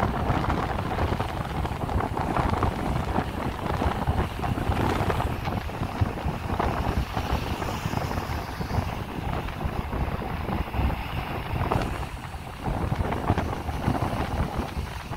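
Sea waves washing and breaking against a rocky shore, with gusty wind rumbling on the microphone.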